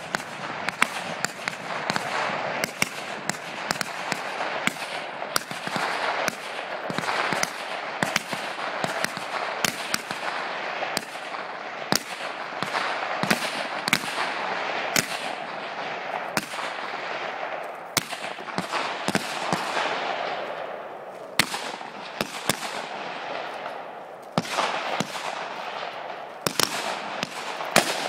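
Rifle shots from a line of prone shooters firing at will, sharp cracks coming irregularly, often one or two a second and sometimes overlapping, over a steady rushing noise.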